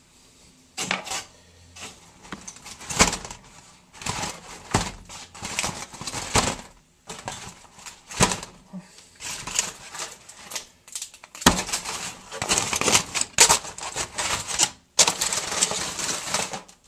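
Close handling noise in bursts: rustling, crinkling and clicking, with a few sharp knocks, the loudest about eleven seconds in.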